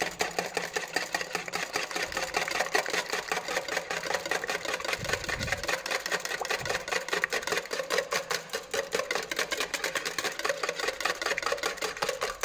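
Cream being whipped by hand with a wire balloon whisk in a plastic bowl: fast, even strokes of the whisk clicking and swishing against the bowl, beating the cream thick.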